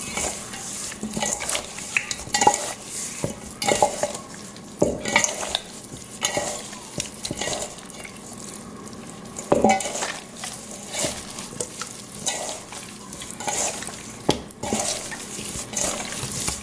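Hands mixing seasoned raw oxtails in a stainless steel bowl: wet squishing of the meat, with irregular knocks and scrapes against the metal bowl.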